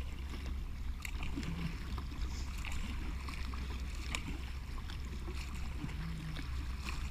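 Water splashing and lapping along the hull of a Lifetime Payette 116 kayak as it is paddled across choppy water, with scattered small splashes and drips. A steady low rumble runs underneath.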